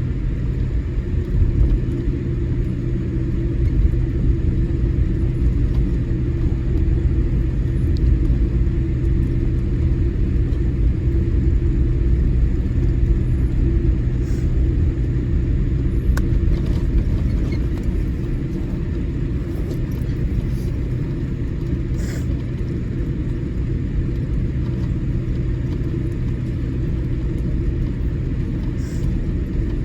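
Steady low rumble of a Boeing 787-8 taxiing, heard inside the cabin: the engines at idle and the wheels rolling, with a steady hum underneath and a few faint ticks.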